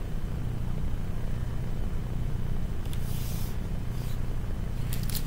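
A steady low hum, with a brief soft rustle of paper about three seconds in as a page is turned on the lectern, and a few light clicks near the end.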